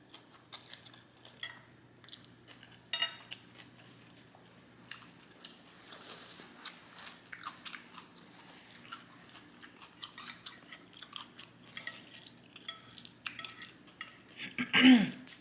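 Close-up mouth sounds of eating black bean noodles: wet chewing and smacking with scattered crunches. A short, loud vocal sound comes from the throat near the end.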